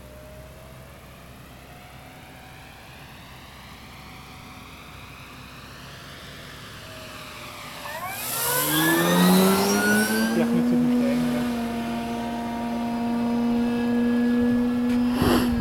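Electric motor and propeller of a large radio-controlled Cessna 185 floatplane (3 kW motor on 12S LiPos), running as a drone that is faint at first and grows louder as the plane approaches. About eight seconds in it passes close and low, turning loud with its pitch dropping sharply as it goes by, then holds a steady drone as it climbs away. A short knock sounds near the end.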